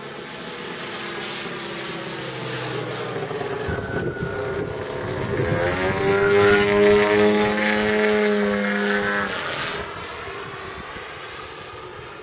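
Engine and propeller of a 33% scale Su-29 aerobatic RC model plane in flight, growing louder with a rising note as it passes close about halfway through. The note cuts back sharply about three-quarters of the way through and the sound fades.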